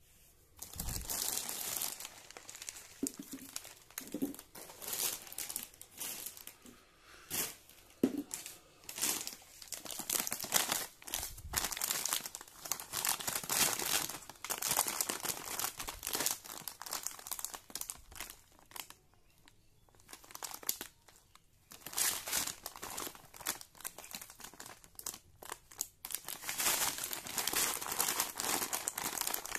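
Plastic food packet of lascha semai crinkling as it is handled and turned over in the hands, in irregular bursts, with a brief lull about two-thirds of the way through.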